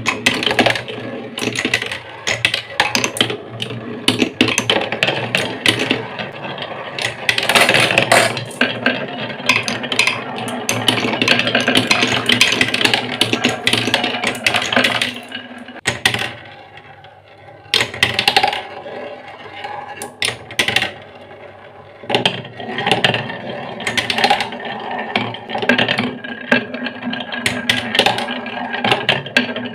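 Glass marbles rolling and clattering down wooden marble-run tracks, a bumpy wave slope and then a spiral, in a dense run of rattling clicks that thins out briefly a little past halfway.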